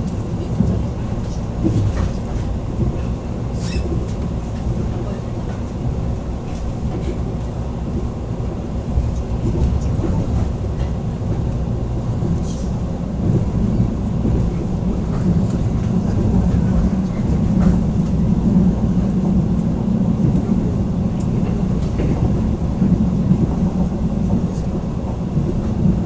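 Passenger train running at speed, heard from inside the car: a steady low rumble of wheels and running gear on the rails, with a few sharp clicks and rattles, growing a little louder in the second half.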